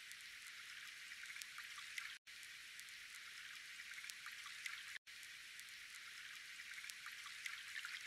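Faint, thin crackling hiss with scattered small clicks, all high and with no low end, cutting out briefly twice, about two seconds in and about five seconds in.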